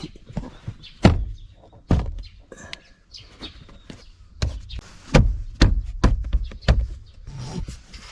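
A series of dull knocks and thumps from parts and tools being handled, irregularly spaced: a loud one about a second in, another near two seconds, then a cluster of several between about four and a half and seven seconds.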